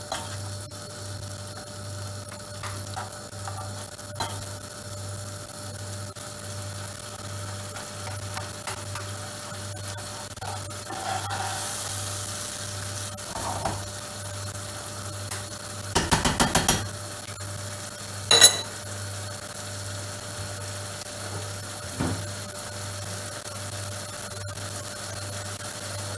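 A spoon stirring and scraping tomato sauce in a frying pan as it starts to heat, with a faint sizzle and a steady low hum underneath. About two-thirds of the way through comes a quick run of taps, then a single sharp clack of the spoon against the pan.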